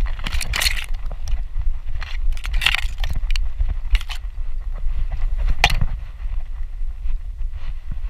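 Wind buffeting the microphone of a harness-mounted action camera, a steady low rumble, with long grass brushing and scraping against the camera housing in several short swishes as the dog pushes through it.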